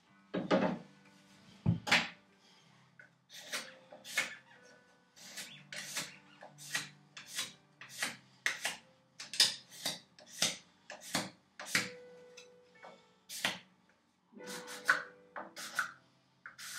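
Hand scraper worked over the wooden vise chop in short, separate scraping strokes, about two a second, with a short pause near the end. Two knocks come first, one of them a low thud.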